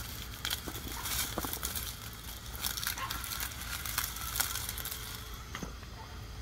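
Radio-controlled rock crawler clambering over stones and dry pine straw: its tyres give off scattered crunches, clicks and crackles.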